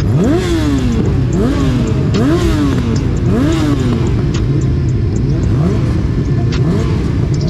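Superbike racing motorcycles accelerating hard, the engine note climbing and dropping back with each upshift, about four times in the first four seconds. A few weaker rising gear changes follow.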